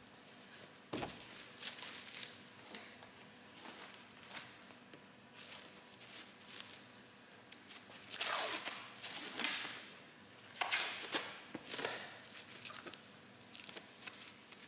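Cloth wiping over a damp Corian solid-surface countertop: irregular rubbing swishes, loudest in two spells past the middle, with a light knock about a second in.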